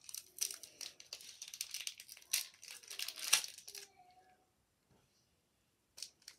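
Foil wrapper of a Pokémon card booster pack crinkling and tearing as it is opened by hand, in dense irregular bursts. It goes quiet for about a second and a half, then the crinkling starts again near the end.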